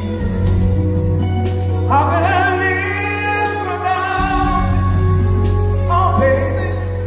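Live band playing a slow soul ballad on keyboards, bass and drums, with a singer holding a long wavering note from about two seconds in and starting another sung phrase near the end.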